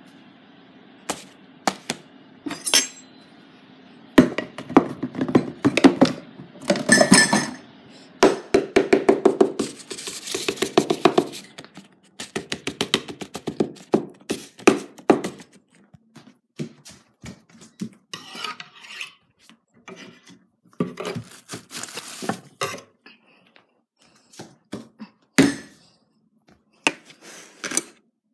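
Handling clatter on a table: a series of knocks, clicks and rubbing as things are picked up and set down, with fast rattling runs of clicks in the first half.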